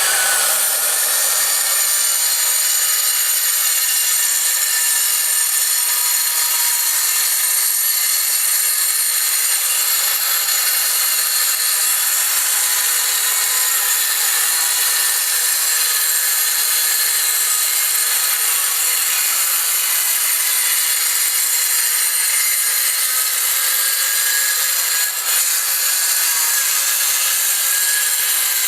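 Circular saw with a cement blade cutting through a thin cast concrete panel: a steady, loud, high-pitched whine and grind, unbroken throughout.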